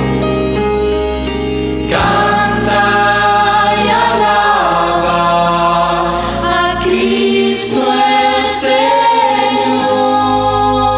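Recorded Spanish-language praise and worship song: voices singing over sustained instrumental chords, with a new phrase entering about two seconds in.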